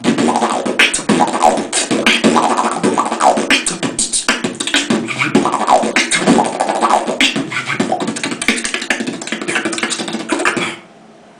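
Human beatboxing: a fast rhythmic beat made with the mouth, sharp percussive clicks mixed with pitched, wavering vocal sounds. It stops abruptly about a second before the end.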